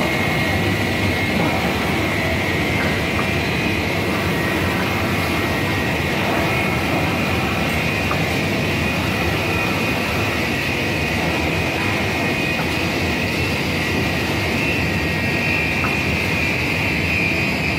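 Steady, loud machine noise from an automatic glass-cutting line, a constant hum with a strong high hiss, with a few faint clicks scattered through it.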